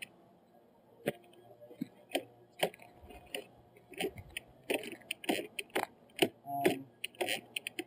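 Irregular light clicks and clinks, a couple of dozen over the few seconds, from small hard objects being handled.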